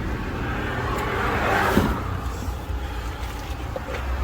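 Motorway traffic rushing past with a steady low rumble of tyres and engines; one vehicle swells up and fades away about one to two seconds in.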